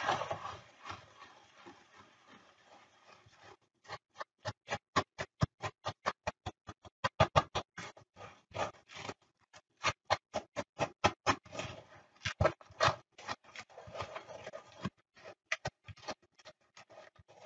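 Wooden spoon stirring buttered graham cracker crumbs in a mixing bowl: a quick run of knocks and scrapes, about four a second, starting a few seconds in.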